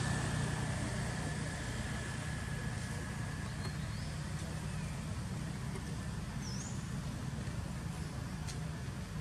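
Steady low hum of an engine running, with two short bird chirps midway.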